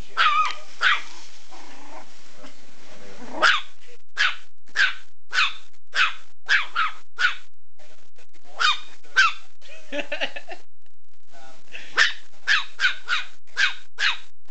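Chihuahua barking in alarm at a teddy bear: a string of short, high-pitched yaps, about two a second, in runs with short pauses between them.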